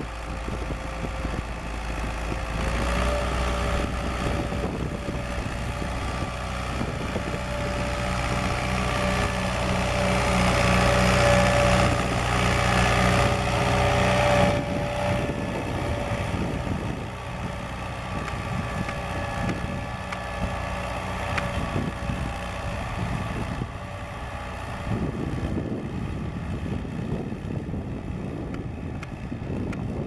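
David Brown 990 Selectamatic tractor's four-cylinder diesel engine running steadily under load while ploughing. It grows louder as the tractor comes close, then drops suddenly about halfway through.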